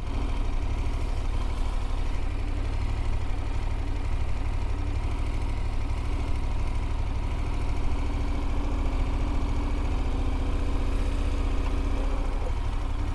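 KTM 1290 Super Adventure S's V-twin engine running at low revs as the motorcycle rolls slowly toward a stop, a steady low rumble.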